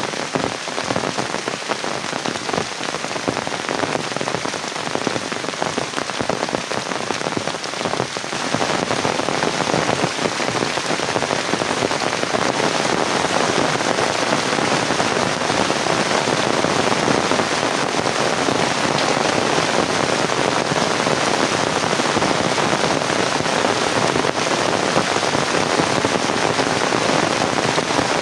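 Rain falling steadily, heard as a dense hiss of many small drop impacts, growing louder about eight seconds in.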